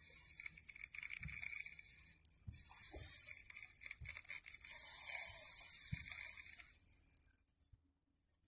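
Drag of a Shimano Stradic CI4 4000 spinning reel buzzing as a big giant trevally strips line. It is a steady high-pitched hiss that cuts off abruptly a little after seven seconds in.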